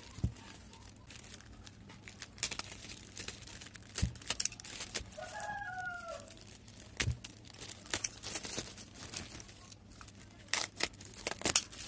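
Plastic bag wrapping crinkling and rustling as hands pull it open around a stack of canvas boards. About five seconds in, a brief falling call sounds in the background.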